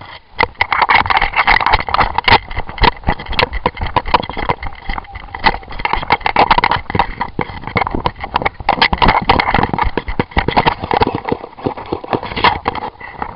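Running footsteps on a dirt field and gear jostling against a body-worn camera: a dense, irregular string of loud knocks and rattles.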